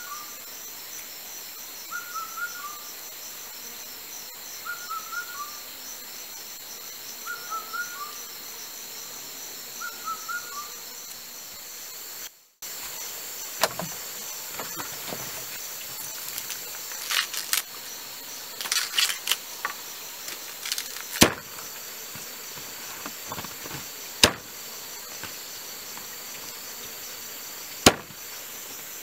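Forest ambience: a bird repeats a short two-note call about every two and a half seconds over a steady, fast-pulsing insect trill. About halfway through there is a break, then handling rustles and clicks, with three sharp knocks of a knife chopping on a wooden block.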